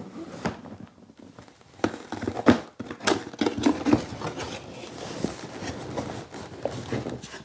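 Cardboard camera box being opened and its packaging handled: scattered light knocks, taps and rustles of card and paper.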